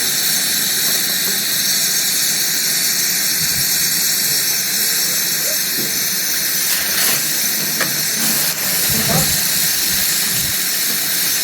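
Steam locomotive hissing steam: a steady, loud, high hiss that does not let up, with a couple of faint clicks in the second half.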